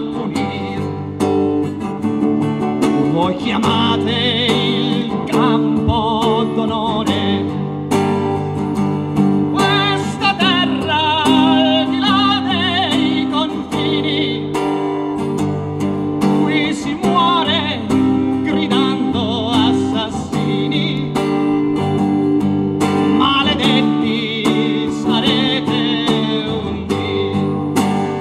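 Live folk song with acoustic guitar accompaniment, strummed and picked, under a wavering sung melody line.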